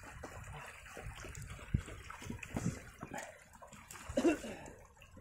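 Shallow creek water trickling and splashing over rocks, with irregular thumps of footsteps on rock and a brief louder sound about four seconds in.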